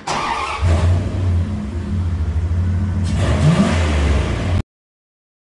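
Car engine running low and steady, briefly revving up about three and a half seconds in, then cutting off suddenly.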